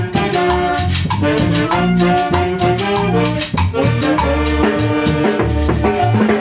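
A Peruvian orquesta (band) playing with brass: horns hold melody notes over a steady bass line and percussion.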